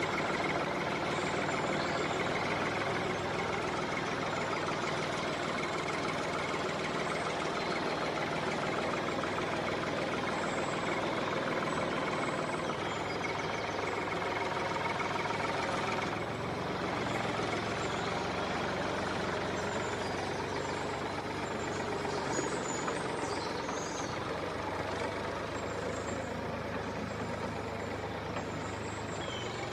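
Small electric motor of a homemade model tractor running steadily with a whirring hum, shifting slightly in tone about halfway through.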